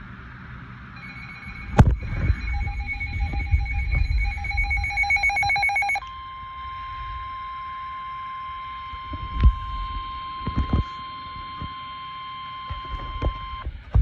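NOAA weather radio alert for a severe thunderstorm warning: about five seconds of pulsing electronic beeps in several pitches that quicken, then the steady, single-pitched warning alarm tone for about seven and a half seconds. A few knocks from a hand handling the radio.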